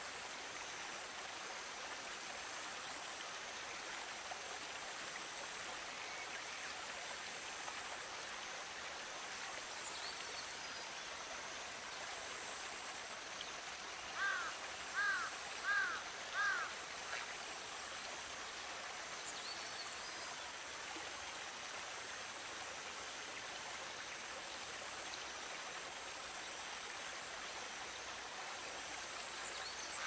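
Shallow stream babbling steadily as it runs over gravel and around a clump of grass and debris. About halfway through, four short animal calls ring out in quick succession over the water.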